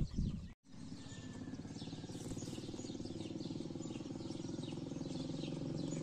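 A motor running steadily with an even hum, while small birds chirp repeatedly over it.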